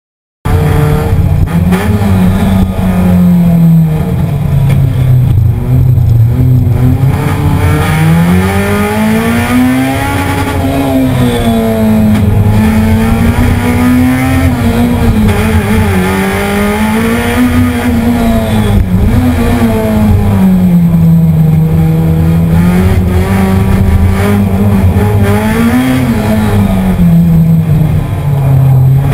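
Race car engine heard from inside the cabin, pulling hard on a time-attack run: its pitch rises and falls again and again as the driver accelerates and lifts for the corners. It cuts in abruptly about half a second in.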